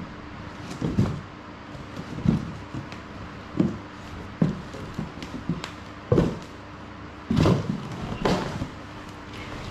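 Cardboard shipping box being handled while a heavy coiled battle rope is pulled out of it: a series of dull thumps, scrapes and cardboard rustles, roughly one a second.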